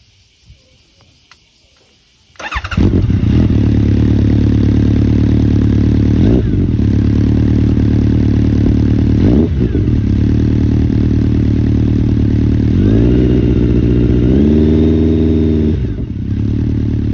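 Honda CB1300SF SP's inline-four engine, breathing through an aftermarket full-system exhaust, starting up about two and a half seconds in and settling into a loud idle. The note wavers twice, then the revs rise and are held up for about three seconds before dropping back to idle.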